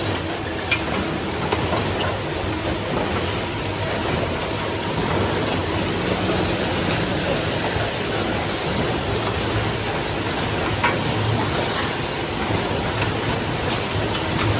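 Automatic wire bending and welding machine running: a steady mechanical noise with a low hum, broken by scattered sharp clicks.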